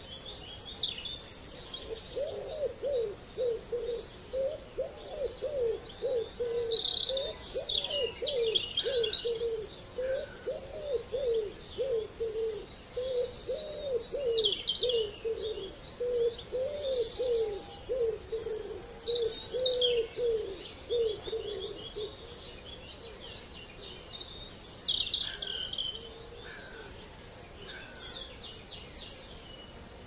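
Dawn chorus of wild birds: several songbirds chirping and whistling at a high pitch, over a low call repeated two or three times a second that starts about two seconds in and stops after about twenty seconds.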